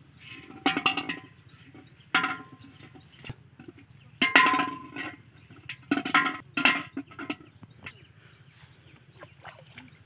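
Large aluminium cooking pot knocked and scraped as it is handled on the ground, clanking with a ringing tone in four or five separate bursts.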